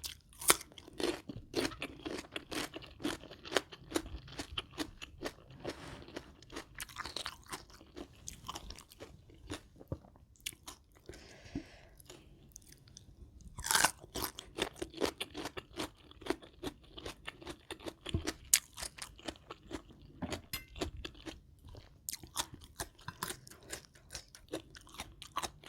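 Close-miked chewing with many crisp, irregular crunches, the sound of a mouthful of rice-noodle salad with shrimp and raw vegetables being eaten. One louder crunch comes about fourteen seconds in.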